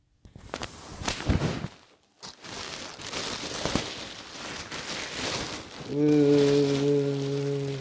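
Packaging rustling and crinkling as it is handled and unwrapped, with a few sharp knocks. About six seconds in, a steady low pitched hum starts and holds for the last two seconds.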